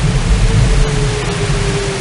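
Steady, loud rushing noise with a heavy low rumble and a faint hum that drifts slightly up and down in pitch.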